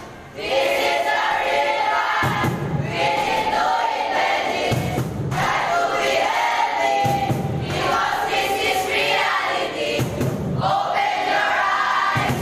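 A group of many young voices singing a nutrition jingle together in unison, in repeated phrases of about two and a half seconds each.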